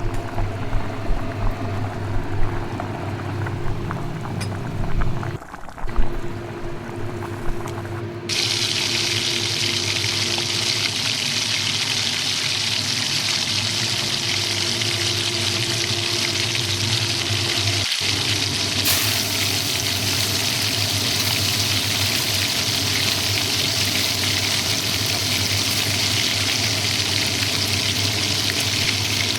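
Water running steadily from a kitchen tap, starting suddenly about eight seconds in as an even rushing hiss. Before it, there are quieter handling sounds over a faint hum.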